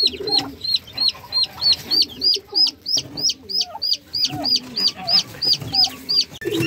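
Newly hatched chicks and turkey poults peeping, a steady run of high, hooked peeps about three a second, over softer low clucking from the brooding turkey hen. The peeping breaks off abruptly near the end.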